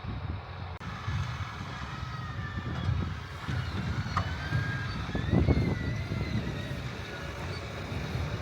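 John Deere 8270R tractor's diesel engine running steadily under load, a low rumble, with a faint whine drifting up and down in pitch. The background changes abruptly less than a second in.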